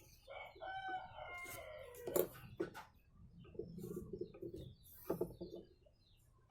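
A rooster crowing once, one drawn-out call falling in pitch at the end, followed by a few sharp knocks and a lower, shorter call.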